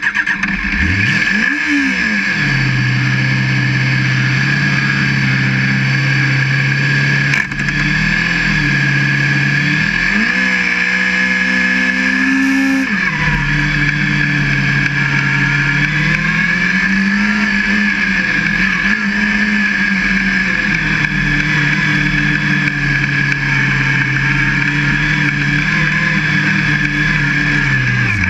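Formula SAE race car's engine, heard close from a camera mounted on the car: the engine is revved once and settles to a steady idle, is revved again about ten seconds in, then pulls away, its pitch rising and falling gently as the car drives. A steady high whine sounds with it.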